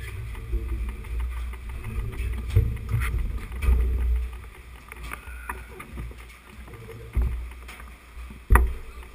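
Mountain bikes clattering and knocking as riders handle them and carry them up metal scaffolding steps, with footfalls on the treads, over a low, uneven rumble. A sharp knock stands out about eight and a half seconds in.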